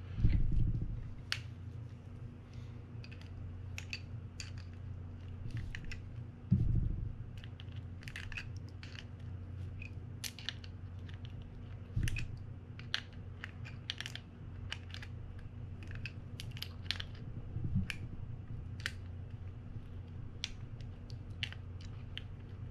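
Scattered light metallic clicks and taps from an adjustable wrench and reel parts as the loose clicker mount on a Penn International 30VSX reel is tightened down. Four dull knocks of handling come through, the first at the very start.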